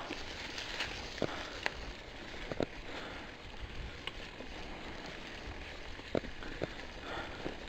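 Mountain bike rolling along a dirt trail: a steady crackling rush of tyres on the ground, broken by a handful of sharp clacks and rattles from the bike as it goes over bumps.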